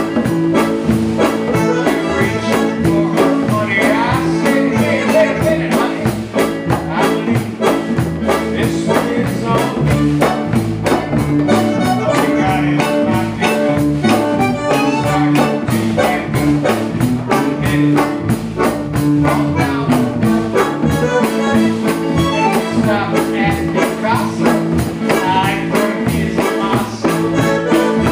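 Live band playing: a drum kit keeps a steady, busy beat with cymbals while an electric bass walks a line underneath and a melody runs over the top.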